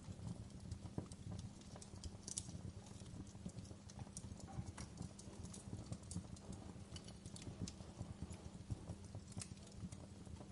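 Campfire burning, with a steady low rumble of flames and a dense run of small irregular crackles. Sharper pops come now and then, for instance about two seconds in and near the end.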